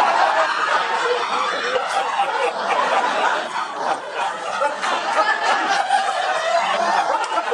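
Audience laughing, breaking out all at once and carrying on at a steady level for several seconds.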